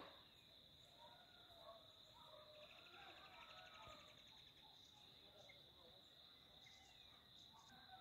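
Faint hillside ambience of insects: a steady high-pitched drone, with a fast pulsing trill a few seconds in and soft scattered bird chirps.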